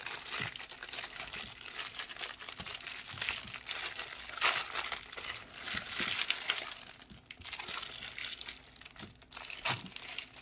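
Plastic toy wrapper crinkling and tearing as it is opened by hand, busiest for about the first seven seconds and then sparser.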